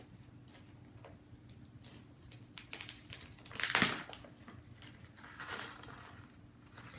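Small clear plastic bag of red diamond-shaped table-scatter pieces being opened and handled: soft crinkling and light clicks, with one louder rustle a little past halfway.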